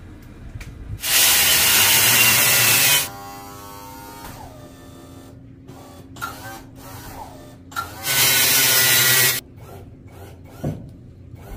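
Two loud bursts of hissing spray, the first about two seconds long and the second, some five seconds later, just over a second, with a steady low hum between them.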